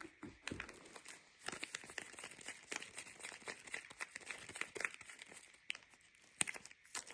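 Soap packaging being unwrapped by hand: dense crinkling and small tearing crackles, busiest in the middle, with a few sharper crackles near the end.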